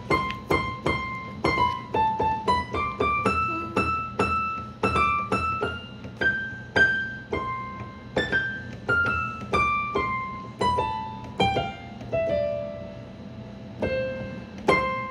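Electronic keyboard with a piano sound playing a simple melody one note at a time in a high register, about two to three notes a second, with a longer held note near the end.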